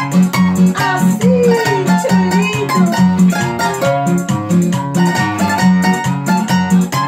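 Requinto and classical guitar playing an Ecuadorian pasacalle: a steady strummed rhythm with a strong bass beat under the requinto's plucked melody.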